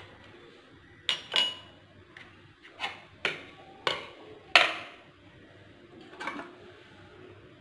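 Stainless steel puttu tube and its metal cap clanking and knocking against a ceramic plate as steamed puttu is unmoulded: about seven sharp knocks, the loudest a little past four and a half seconds in.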